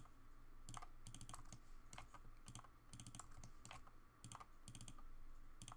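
Faint, irregular clicking of a computer mouse and keyboard, in small clusters of two or three clicks every half second to a second.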